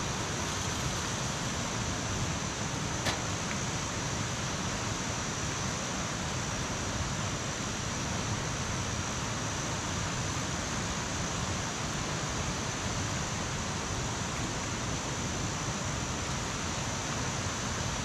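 Steady rushing of a mountain stream, with one faint click about three seconds in.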